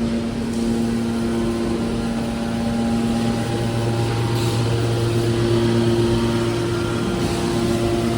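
Mobile car baler's engine-driven hydraulic power unit running steadily: a constant mechanical hum with several steady pitched tones, getting slightly fuller about three seconds in.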